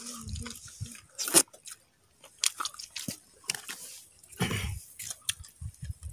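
A person chewing and eating sea urchin roe close to the microphone: wet mouth sounds with scattered sharp clicks and smacks.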